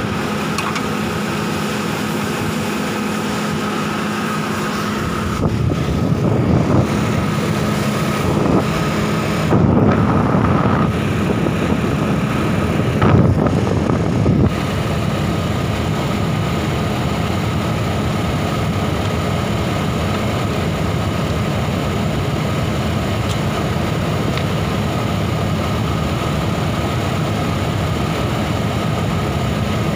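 Truck engine idling steadily, growing louder and rougher from about five seconds in until about fourteen seconds, then settling back to an even idle.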